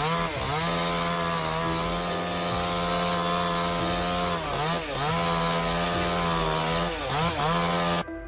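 Chainsaw engine running at full throttle with a steady high pitch. The pitch sags and recovers three times, about half a second in, about four and a half seconds in and about seven seconds in, as the chain is loaded in the wood. It cuts off abruptly near the end.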